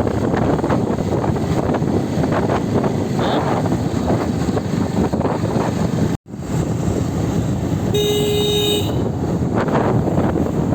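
Wind rushing over the microphone on a moving motorcycle, with a vehicle horn sounding once for about a second near the end.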